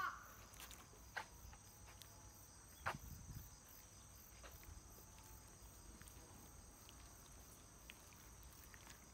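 Near silence with a faint, steady, high-pitched insect chorus pulsing quickly, and a few light clicks, the loudest about three seconds in.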